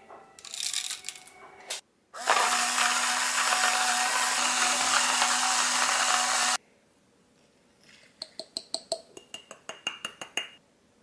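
Coffee beans rattle into an electric coffee grinder's hopper, then the grinder motor runs loud and steady for about four seconds and cuts off suddenly. Near the end, a quick run of light clinks as the glass grounds jar is tapped over a ceramic pour-over dripper.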